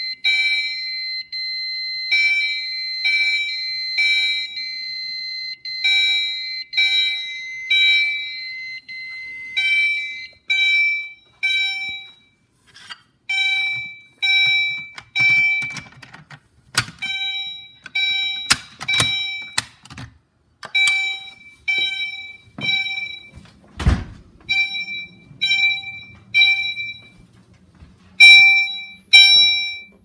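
Gentex Commander 3 fire alarm horns sounding in repeated pulses, about one to two a second, with a steady alarm tone under them that stops about ten seconds in. A few sharp knocks come in the middle, and a heavy thump about 24 seconds in.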